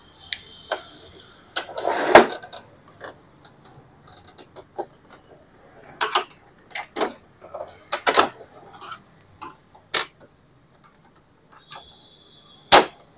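Knocks, clicks and scraping of the plastic casing and parts of an Epson LQ-2190 dot-matrix printer being handled and opened up, the loudest knock about two seconds in and several more spread through, with a short high tone at the start and again near the end.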